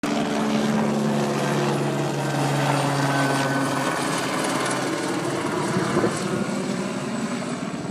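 Police helicopter flying low overhead, its rotor and engine running steadily. A low hum is strong at first and drops away about halfway through, and the sound eases slightly near the end as the helicopter moves off.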